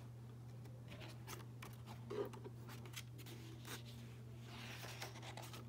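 Faint rustling and soft clicks of a picture book being handled and its pages turned, with a longer soft rustle near the end, over a low steady hum.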